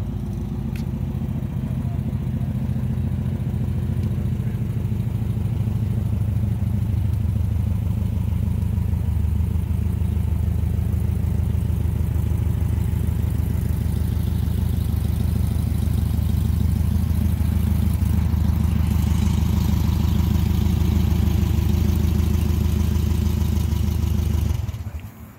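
Volkswagen Beetle pickup's engine idling steadily, then shut off about a second before the end.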